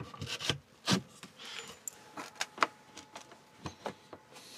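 Hands working inverter cables into place against a wooden furniture panel: irregular light clicks and knocks with brief rubbing.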